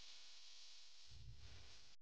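Near silence: a faint steady hiss of room tone, with a faint low rumble in the second half.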